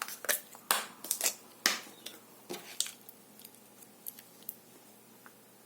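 Small sharp clicks and short snipping scrapes from handling beads and small tools while making a rosary bracelet, busy over the first three seconds, then thinning to a few faint ticks.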